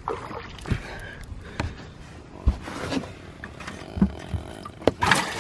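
Scattered knocks and bumps on a bass boat's hull and deck, and water moving in the live well as a hand reaches in for a caught bass, with a louder noisy splash-like burst about five seconds in.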